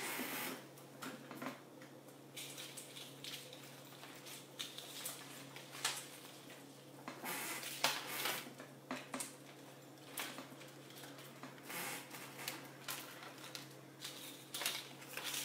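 Jewelry being rummaged through and handled: irregular light clicks and rustles, over a steady low hum.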